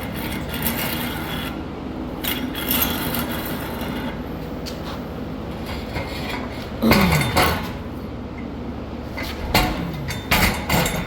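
Metal tools and parts clinking and knocking during car repair work, over a steady low hum, with a louder cluster of knocks a little past halfway and again near the end.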